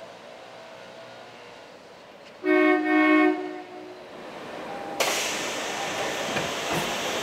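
Seattle Monorail train sounding its horn in two short blasts as it approaches the station. From about five seconds in comes the louder, steady rolling noise of the train coming alongside the platform, with a few knocks.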